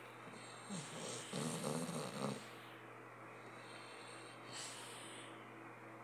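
A sleeping dog snoring: one snore lasting about a second and a half, starting about a second in, and a fainter breath a few seconds later.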